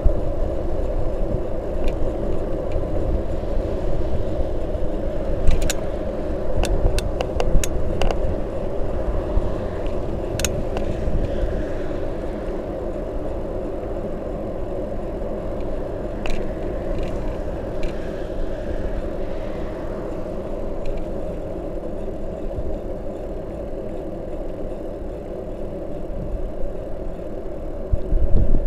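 Bicycle tyres rolling steadily on an asphalt road, with wind buffeting the microphone. A few sharp clicks come about six to eight seconds in and again around sixteen to eighteen seconds.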